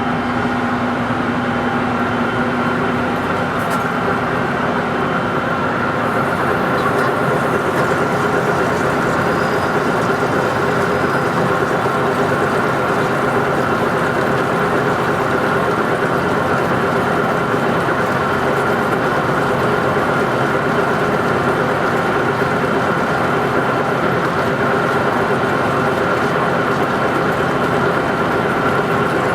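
A lathe running steadily while turning a large pot-bearing part: an even machine drone with a few steady whining tones. A higher hiss joins about six seconds in.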